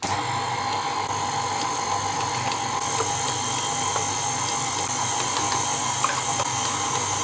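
KitchenAid Artisan stand mixer switched on and running steadily, its flat beater mixing cake batter in the steel bowl, with a few faint ticks.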